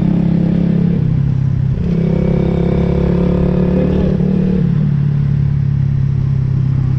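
Motorcycle engine running steadily while riding at road speed. Its pitch steps down slightly about two seconds in and again near five seconds, as the throttle eases or a gear changes.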